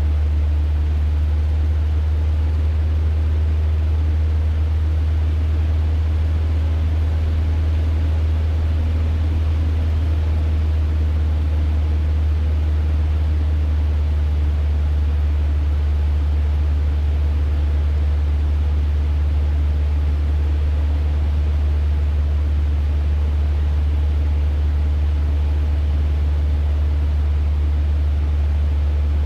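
Cessna 150's four-cylinder Continental O-200 engine and propeller droning steadily in the cockpit in flight, a deep hum with a wash of noise over it and no change in power.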